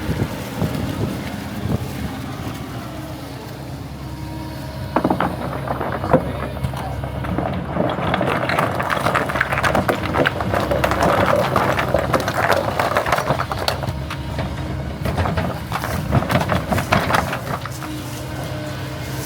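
Heavy equipment engine running steadily at a low, even pitch, with a louder, busier layer of clattering sound over it from about five seconds in until near the end.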